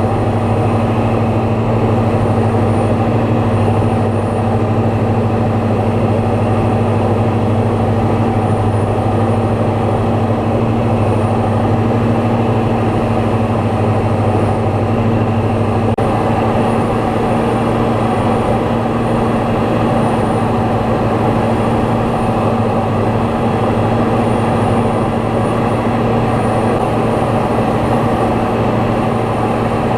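Light aircraft's piston engine and propeller droning steadily at constant power, as heard inside the cockpit.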